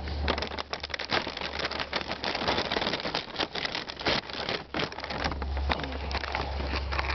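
Thin plastic bag crinkling and rustling as it is opened by hand, a dense, irregular run of small crackles. It is the factory-sealed bag of an OEM Honda air filter.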